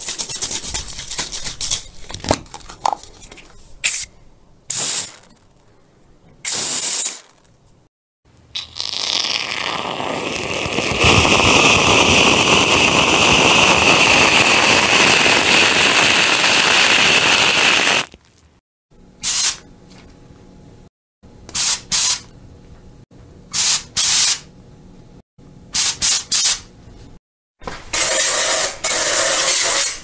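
Aerosol can spraying: several short bursts, then one long continuous spray of about ten seconds, then a run of quick short bursts and a longer one near the end.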